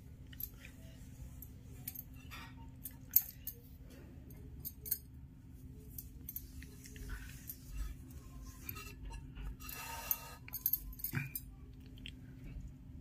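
Light handling sounds of hands pressing and flattening a ball of stuffed spinach dough on a metal rolling board: scattered soft taps and small clicks, one sharper click about three seconds in and a cluster near the end, over a steady low hum.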